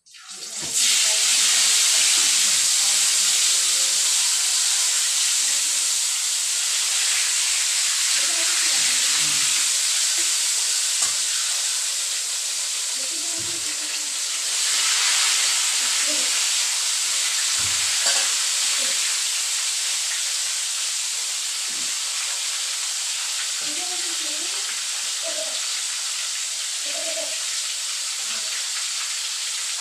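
Food frying in hot oil in a pan on a gas stove: a loud, steady sizzle that starts suddenly about a second in and swells briefly about halfway through.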